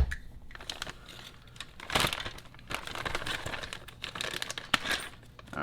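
Plastic parts bag crinkling and rustling as it is opened and handled, with a sharp click about five seconds in.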